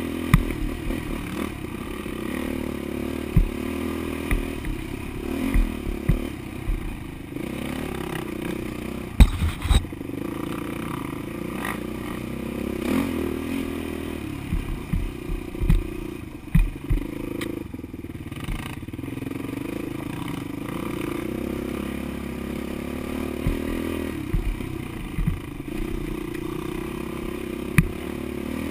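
Off-road vehicle engine running at varying throttle on a rough dirt trail, with frequent knocks and clatter as the machine bounces over bumps. A sharp knock comes about nine seconds in and another near the end.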